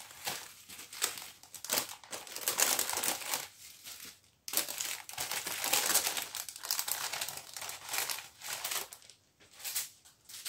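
Small clear plastic bags of round diamond painting drills crinkling as they are handled and laid out one by one, in irregular rustles with short pauses.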